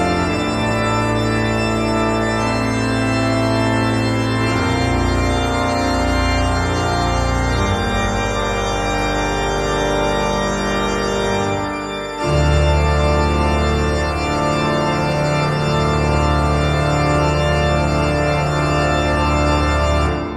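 Background music of long held chords that change every few seconds, growing louder at a chord change about twelve seconds in.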